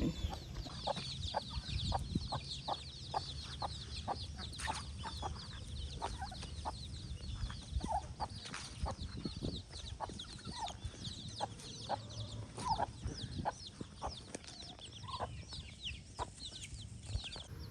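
Chickens clucking softly amid many quick, high bird chirps, over a low background rumble.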